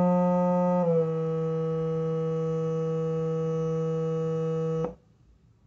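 Steady low buzzy tone from a phone frequency-generator app played through a small portable speaker, at about 178 Hz, stepping down to about 161 Hz and a little quieter about a second in. It cuts off suddenly near the end.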